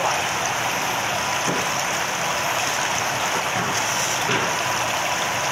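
A row of thin water jets from a spray pipe pouring into a live seafood tank, a steady splashing on the water's surface.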